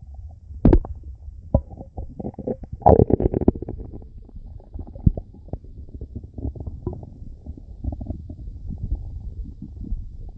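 Stomach rumbling and gurgling: a low bubbling growl broken by many small pops and squelches, with a louder gurgling burst about three seconds in.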